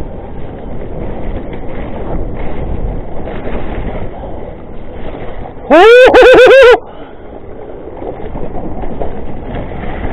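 Mountain bike descending a wet, rough trail: a steady rush of wind and the rattle of bike and tyres on the microphone. About six seconds in comes a loud yell lasting under a second.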